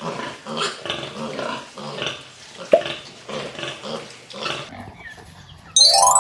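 Pigs grunting in a quick run of short grunts, two or three a second. Near the end a sudden loud ringing tone with several pitches comes in.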